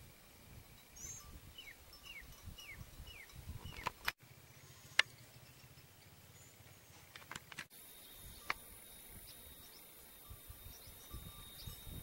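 Wild birds calling outdoors: a run of short falling whistled notes about twice a second with high chirps over them. Then a few sharp clicks, the loudest about five seconds in. Later a steady high-pitched whine comes in, with scattered bird notes.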